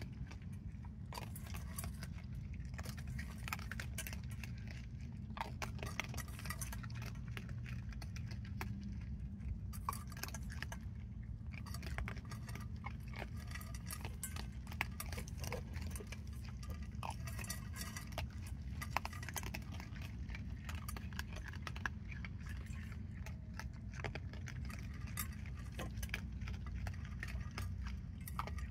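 Raccoons eating dry cat food, crunching and chewing, with frequent small clicks and clinks as their paws and muzzles knock the stainless steel bowl. A steady low hum runs underneath.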